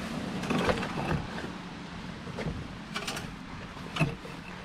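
Scattered knocks, scrapes and gravel crunching from a motorcycle lying on its side as the rider strains to lift it; the bike does not come up.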